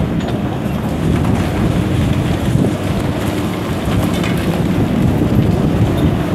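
Wind buffeting the microphone over the steady running of diesel demolition excavators, with a low engine hum beneath the rumble.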